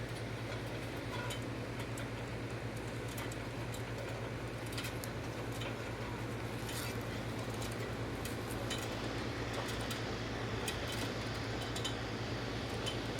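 Scattered light metallic clicks and taps, typical of handling and fitting a sheet-metal one-way bird exclusion tunnel, over a steady low hum.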